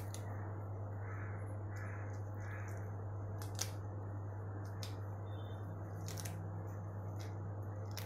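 Low, steady background hum with a few faint clicks as oyster mushroom clusters are pulled apart by hand. Three soft, short calls sound between about one and three seconds in.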